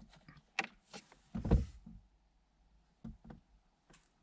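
Handling of the stereo's plastic wiring plugs and harness: a few scattered light clicks and one dull knock about a second and a half in, the loudest sound.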